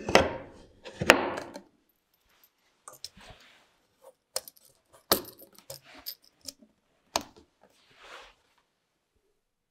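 Steel hatchet head set down into the slot of a wooden stand: a sharp knock at once and a second, equally loud knock about a second later. Then lighter clicks, taps and rustles as a leather strap is laid over the handle and its brass snap pressed shut.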